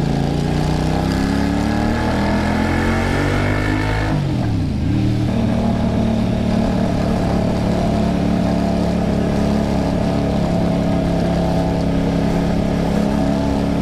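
Kasinski Mirage 250's V-twin engine accelerating, rising in pitch for about four seconds. About four seconds in there is a quick gear change, where the pitch dips and recovers. It then runs at a steady speed.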